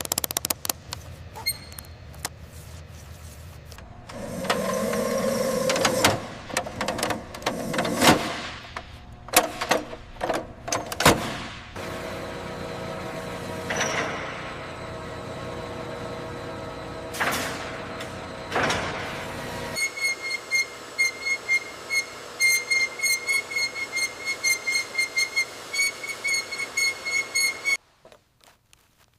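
Assorted workshop tool sounds: scattered clicks and knocks and a few swishing passes, then, about two-thirds of the way in, a fast, even ticking of about three strokes a second with a ringing tone that stops abruptly near the end.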